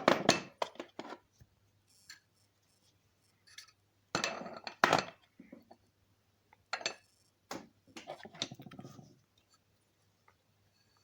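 Steel connecting rods and small metal parts clinking and knocking as they are handled on a bench, in three bursts of clatter.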